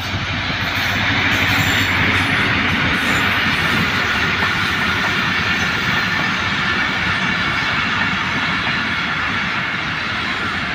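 Passenger coaches of a diesel-hauled Pakistan Railways express rolling past at speed: a steady rush and rumble of wheels on rail. The locomotive's low engine drone fades out over the first few seconds.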